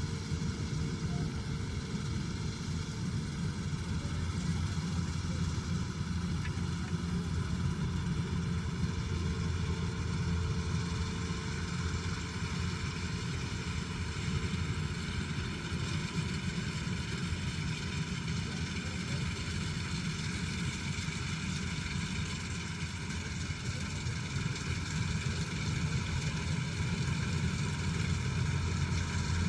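Kubota DC-108X combine harvester's diesel engine running steadily, with the even hum and whir of the machine's drives over it.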